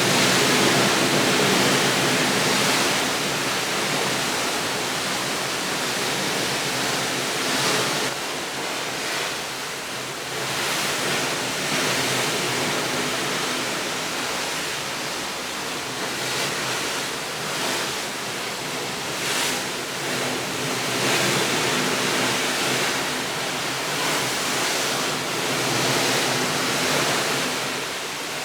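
Continuous rushing water, swelling and easing gently every few seconds.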